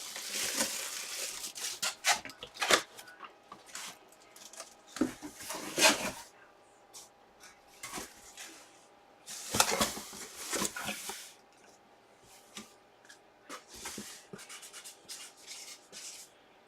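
Plastic packaging crinkling and tearing in irregular bursts, with small clicks and knocks between them, as a collectible box is handled and opened.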